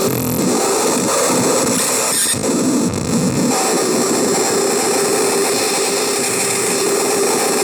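CMOS-based harsh noise synth putting out a loud, dense wall of distorted noise. A wavering, buzzing tone runs through it, with a brief shift in texture about two seconds in.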